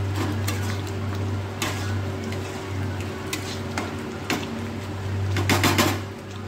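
A ladle stirring thick, sizzling curry masala in a black kadai, scraping and knocking against the pan now and then, with a quick cluster of knocks about five and a half seconds in. A steady low hum runs underneath.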